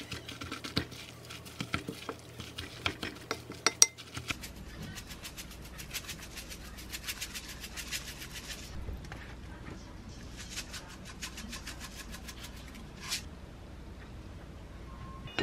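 Wooden spoon clicking and scraping against a glass mixing bowl while mixing bibimbap, in rapid runs of small knocks. The knocks pause briefly about nine seconds in, then come again for a few seconds.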